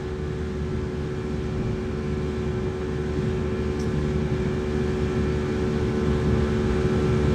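Motorboat engine running steadily at speed, heard from on board, with a constant drone that grows slightly louder toward the end.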